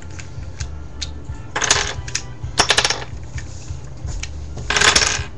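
Plastic Rubik's Cube pieces clicking and rattling in three short bursts as the cube is handled and taken apart.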